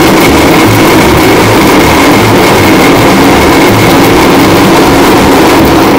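Electric mixer grinder running at full speed, its steel jar grinding whole spices and cashews into a fine paste, with a steady high whine over a loud rushing noise.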